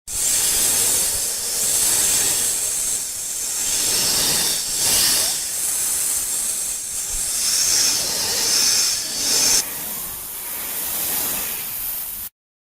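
Snake hissing in one long, continuous hiss that swells and dips. It drops in level about ten seconds in and cuts off abruptly near the end.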